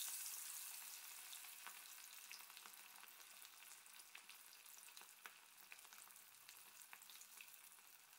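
Pomfret coated in gram-flour and masala, sizzling in hot oil just after going into the pan: a steady hiss with scattered crackles and pops, growing quieter over the first few seconds.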